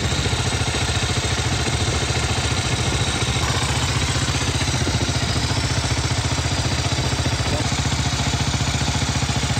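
Dual-sport motorcycle engine running at a steady speed, its firing pulses even and unchanging.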